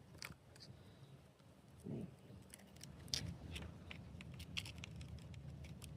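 Faint, scattered small clicks and rattles of a 35mm film camera and film cassette being handled while the film is fitted in, with a brief low hum about two seconds in.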